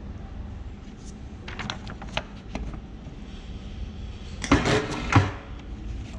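Paper sheets rustling and tapping as they are handled. Then, about four and a half seconds in, the Rhin-O-Tuff HD7000 binding punch makes one heavy punching stroke: a loud clunk and a second knock less than a second later.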